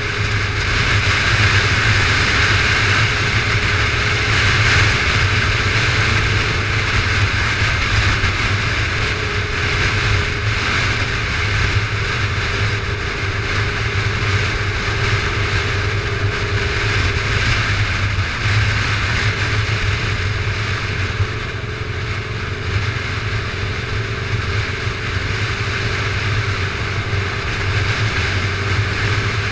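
Motorcycle engine running steadily at cruising speed, under a constant rush of wind and road noise on the bike-mounted microphone.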